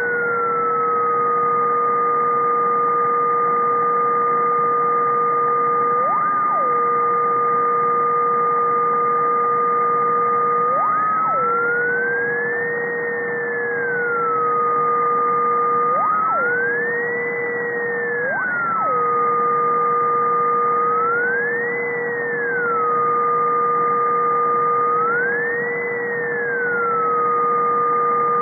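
Ultrasonic electronic noise from above 50 kHz, shifted down to audible pitch, heard as two steady whistling tones. The lower tone stays level apart from four brief upward chirps, while the higher tone swoops slowly up and back down four times. The uploader takes it to be a switched-mode power supply.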